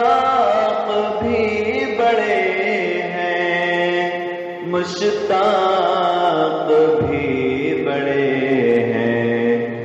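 Naat singing: a man's voice holding long, drawn-out notes that waver and glide in pitch, with more than one vocal line sounding at once.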